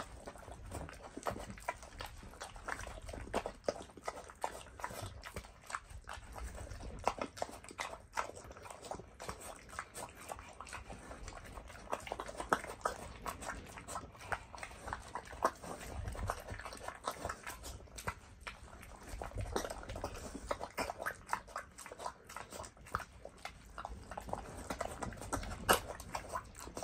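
A pig eating pumpkin mash and feed from a metal pan: a continuous run of wet chewing and smacking, with irregular clicks as the snout works through the food.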